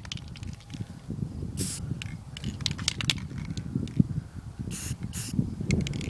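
Aerosol can of black spray paint sprayed in three short hissing bursts, with light clicks and handling knocks between them.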